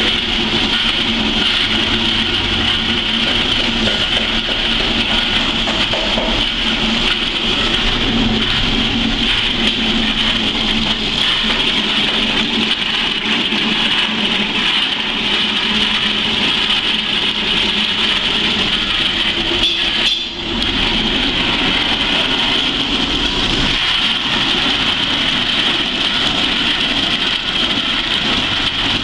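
Soybean dehulling machine running steadily, with a constant mechanical hum while soaked soybeans and water are fed through it. The sound drops out for a moment about twenty seconds in.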